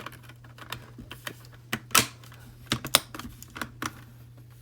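Irregular plastic clicks and taps from the Akko 3068 V2 keyboard's case and internals being handled and pressed while trying to snap them back into place, the loudest clicks about two and three seconds in.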